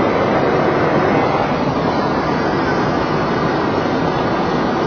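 Steady rushing cockpit noise of a Boeing 737 in flight on descent, an even roar without any distinct tones or knocks.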